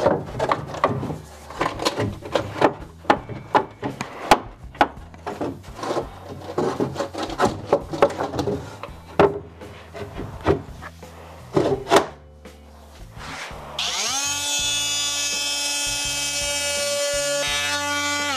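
Glass-fibre-coated wooden panels knocked and bumped as they are slid into place around a mill table, a run of irregular knocks. About two-thirds of the way in, the CNC mill's electric spindle motor spins up with a quick rising whine, runs steadily, and cuts off near the end.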